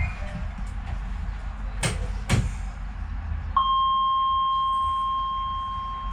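Low rumble inside a Docklands Light Railway train. Two sharp clicks come near the middle, then a steady electronic beep tone starts and holds, slowly fading.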